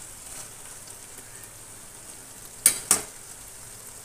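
Diced ivy gourd frying in oil in an aluminium pot over a low flame, a steady sizzle as it is stirred with a metal spoon. Near the end the spoon knocks sharply against the pot twice in quick succession.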